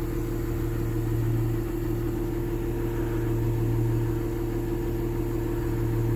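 Excavator's diesel engine idling steadily, a low hum that swells gently about every two and a half seconds.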